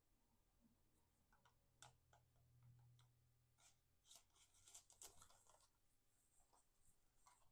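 Near silence with faint scattered light clicks and rustles of hands at work, densest about four to five seconds in: a bamboo stake being set into a potted plant beside its moss pole.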